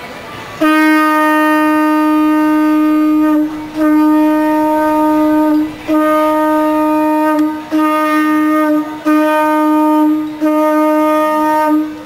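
Hawaiian conch-shell trumpet (pū) blown as a ceremonial call: about six long blasts on one steady note, the first about three seconds and the rest a little shorter, each followed by a brief break.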